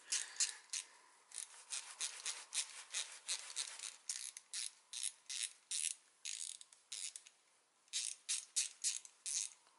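Repeated short clicks from a hand-turned driver with a 2 mm hex bit, several a second with a brief pause about seven seconds in, as it backs out the grub screw that locks the pivot of a Shimano M675 hydraulic brake lever.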